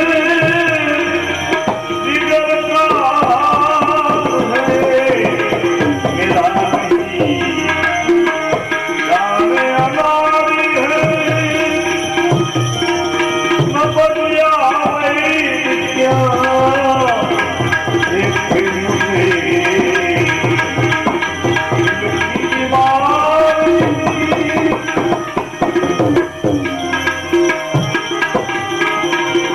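Devotional bhajan music: tabla playing a steady rhythm under a melody with gliding notes.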